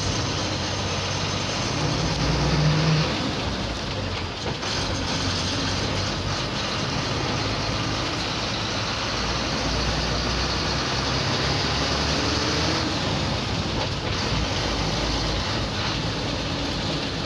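MSRTC bus engine running as the bus drives along, with the steady rumble and road noise of the driver's cabin; it swells briefly about two seconds in.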